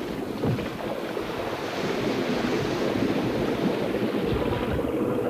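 Water rushing and churning as a diver lock-out chamber is drained, a steady rushing noise.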